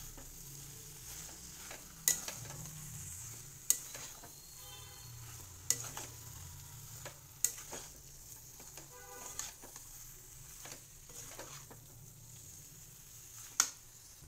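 Metal spatula stirring a thick masala curry of potato, paneer and pointed gourd in an aluminium kadai, over a steady sizzle of frying, with sharp knocks of the spatula against the pan every second or two. Near the end a metal lid clanks onto the pan.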